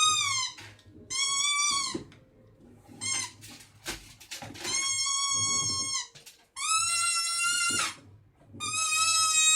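A series of high, shrill whistling calls: about five long notes and one short one, each held for around a second and dropping in pitch at the end.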